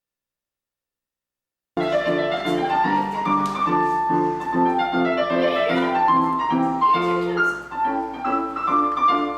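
Silence, then about two seconds in, piano music starts: chords struck over and over with a melody above them.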